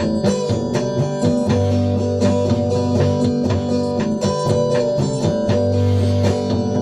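Electric guitar strummed in a steady rhythm, several strokes a second, with sustained low notes underneath. It is an instrumental passage between sung lines.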